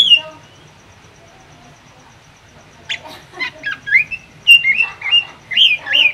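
Drongo (srigunting) singing: one sharp rising call at the start, then, after a pause of nearly three seconds, a quick run of varied whistled and chattering notes that keeps going.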